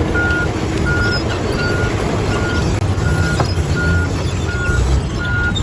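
Heavy construction machine's diesel engine rumbling, with a reversing alarm beeping steadily a little faster than once a second.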